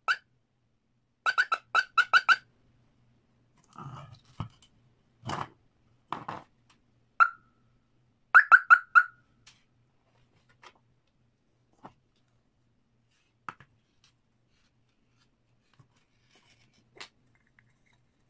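Small 12 V electronic siren horn sounding short, loud chirps of one steady tone as its bare wires are tapped against a 12 V adaptor lead to test it: one chirp at the start, a quick run of about five a second later, another near seven seconds in and a run of four just after. Softer handling knocks and rustles come between the chirps.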